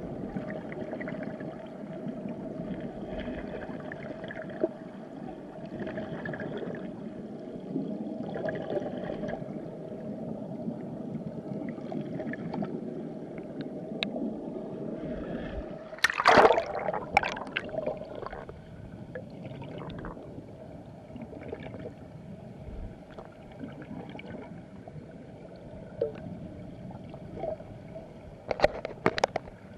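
River current heard underwater: a steady gurgling rush, with a loud clattering burst of knocks about halfway through and a few sharp clicks near the end.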